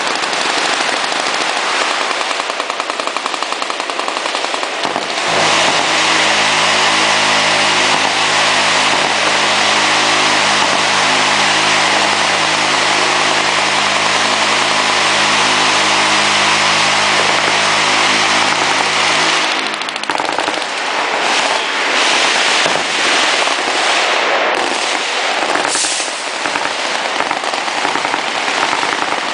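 Continuous, heavy automatic gunfire from machine guns firing at once. From about five seconds in to about nineteen seconds a steady low drone runs under the gunfire, and after that the fire breaks into separate bursts.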